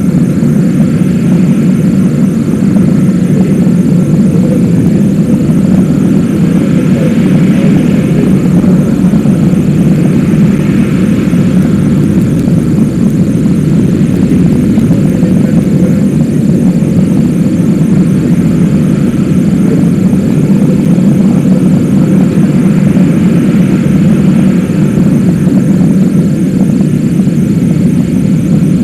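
Steady low rumble of a Zenit rocket's engines heard from far off as it climbs away, unbroken and level throughout.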